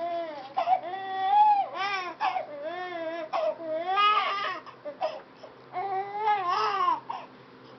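Baby crying during a diaper change: a string of short, high wailing cries that rise and fall in pitch with brief gasps between them, stopping about seven seconds in.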